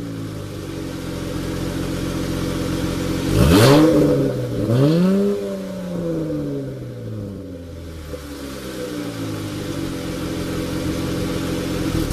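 2015 Dodge Challenger SXT's 3.6-litre V6 idling through a Flowmaster American Thunder exhaust. It is revved twice in quick succession about a third of the way in, the pitch rising sharply and falling back to idle each time.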